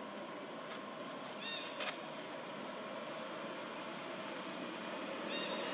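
Steady outdoor background noise, with two brief high-pitched chirps, one about a second and a half in and one near the end, and a single sharp click just before two seconds.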